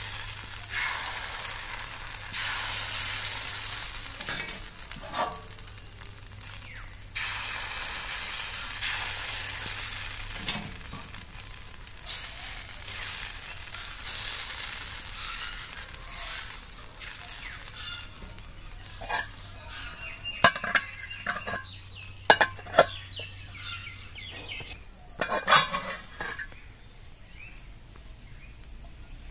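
Rice-flour batter sizzling as it is poured into a hot cast-iron chitoi pitha mould, in several strong surges of hiss over the first half. The sizzle then dies down, and a series of sharp knocks sounds in the second half.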